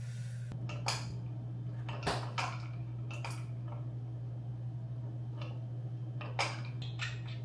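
Hookah parts being handled on a kitchen counter: several light clinks and knocks spread over a few seconds, over a steady low hum.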